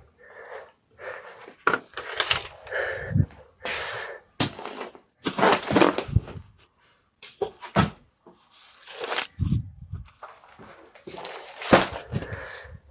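Packaging being handled at a packing table: irregular rustling and crinkling of wrapping material, with a few short knocks.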